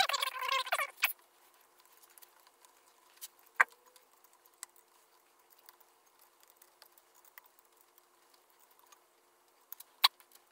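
Rubber O-rings squeaking as they are worked down over the steel cylinder studs of a Sea-Doo 951 engine, a burst of squeaks in the first second. After that come faint clicks and taps of small parts, with one sharper click about three and a half seconds in, over a faint steady hum.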